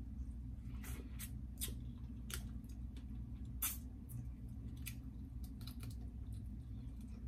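Close-miked eating of sauce-drenched blue crab and shrimp: wet smacking and squishing with irregular sharp clicks, the strongest about halfway through, over a steady low hum.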